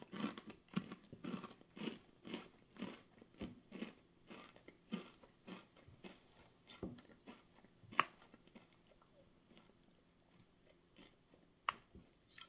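A person chewing a mouthful of Ruffles Double Crunch potato chips: crisp crunches about twice a second, growing quieter and sparser after about six seconds, with a sharp click about eight seconds in.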